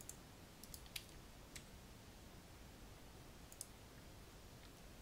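A few sharp computer mouse and keyboard clicks over faint room hiss: a cluster of about five in the first second and a half, then a quick pair about three and a half seconds in.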